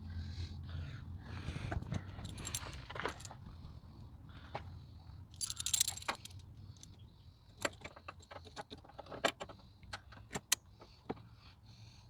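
Irregular metallic clicks and clinks as a radiator hose is fitted and its spring clamps worked with hand tools under the hood, with a short scraping rustle about halfway through.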